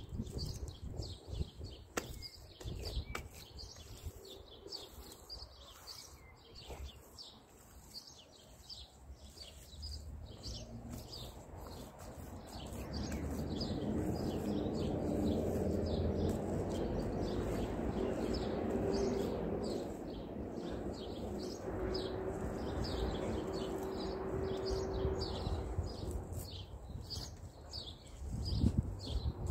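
Small birds chirping over and over in quick short notes. From about a third of the way in, a low droning hum with a couple of steady tones swells up, holds, and fades away again near the end.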